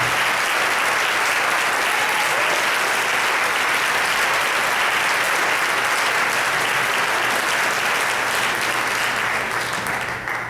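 Congregation applauding, a steady spread of hand claps that dies away near the end.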